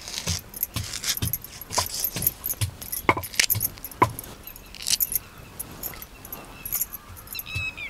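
Long wooden pestle pounding garlic cloves and ginger in a stone mortar: a dull thud with a crisp crunch on each stroke, about two strokes a second in an uneven rhythm.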